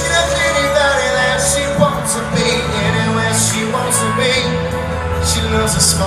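A live country band playing a stretch of the song without lead vocals, with sustained guitar lines over bass and repeated cymbal-like hits, heard through a phone recording from the crowd at a loud concert.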